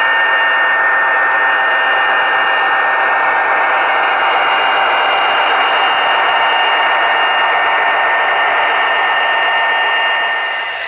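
Model locomotive sound decoder playing a diesel engine sound through its small loudspeaker: a steady, thin-sounding engine rumble with a faint constant whine, dipping near the end.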